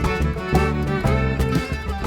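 Background instrumental music with fiddle and guitar over a steady bass, in a country or bluegrass style.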